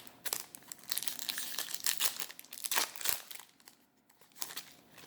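Yu-Gi-Oh trading cards and their packaging being handled: crinkling and rustling in a quick run of short bursts, busiest in the middle, with a few more near the end.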